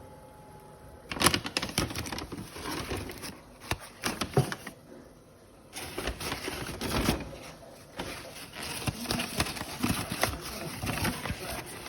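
Handling noise: irregular clicks, taps and rustling, starting about a second in, with a quieter lull about five seconds in before it picks up again.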